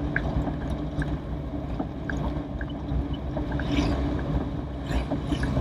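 Toyota Corolla DX driving, heard from inside the cabin: steady low engine and road rumble with small scattered clicks.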